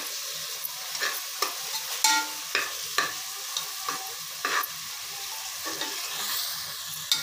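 Chopped onions sizzling in hot oil in an aluminium pressure cooker while a perforated steel spatula stirs them, scraping and clicking against the pot every second or so. The onions are being sautéed until they turn light pink.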